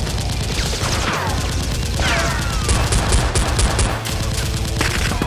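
Rapid automatic gunfire sound effects with several falling whizzing sounds, over background music with a steady bass line.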